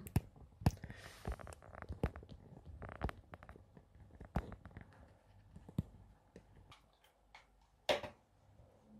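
Scattered faint clicks and taps at irregular intervals, with a louder knock about eight seconds in.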